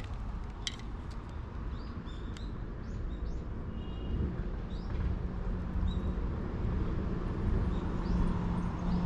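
Outdoor ambience: small birds giving short chirps now and then over a constant low rumble, with a steady low hum coming in about halfway through.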